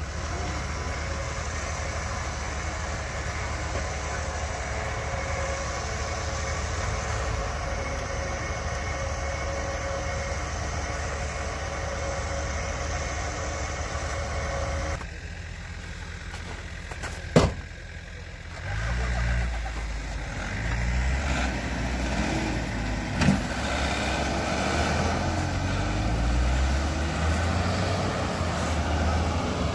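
Off-road 4x4 vehicle engine running steadily; about halfway the sound changes abruptly, a sharp knock follows, and then an engine revs up and down, with another short knock a few seconds later.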